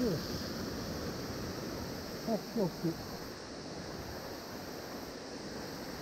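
Steady rush of water spilling over a low weir into a shallow pool. A little past two seconds in, three short sounds fall quickly in pitch.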